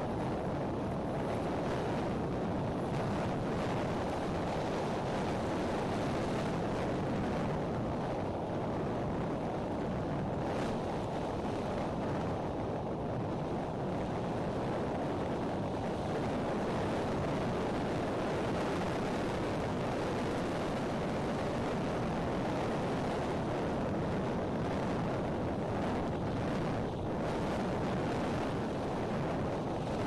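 Strong wind blowing across the nest-cam microphone: a steady low rush of wind noise with no let-up.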